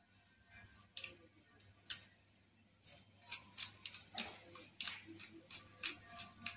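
Sharp little clicks and ticks of a plasma torch's ceramic shield cup being handled and screwed onto the torch head: two single clicks about one and two seconds in, then a quick run of clicks about three a second.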